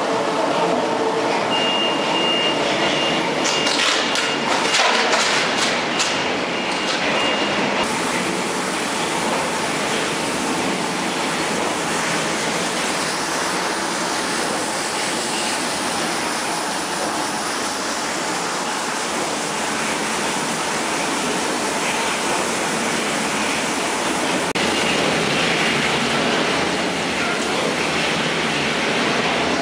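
Bano industrial waste shredder running under load, a steady loud grinding noise of waste being torn up. Sharp cracks and knocks come through a few seconds in, and a thin high steady tone sounds over the first several seconds.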